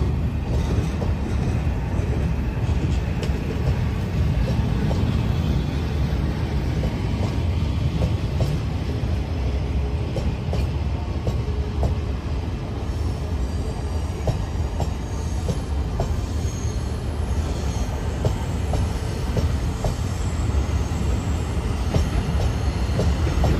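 A departing freight train's wagons and hauled passenger coaches rolling past on the rails: a steady low rumble with irregular light clicks of wheels over the track, and faint high wheel squeals now and then in the second half.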